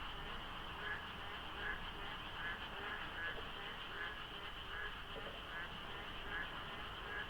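Dense chorus of frogs calling over one another in the rainy season: a steady high trill underneath, with short calls repeating about every three-quarters of a second.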